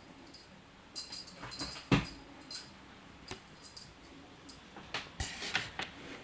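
Scattered light clicks, rattles and knocks from a British Shorthair kitten playing at a plastic ball-track cat toy and a ribbon wand, with one louder knock about two seconds in.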